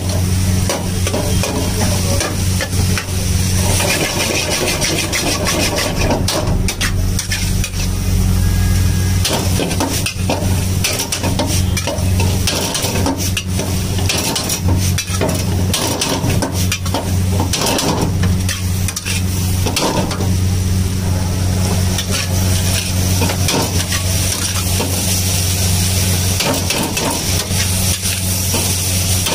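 Chowmein noodles and vegetables stir-fried in a large wok, sizzling, while a long metal spatula scrapes and clanks against the pan over and over. A steady low hum runs underneath.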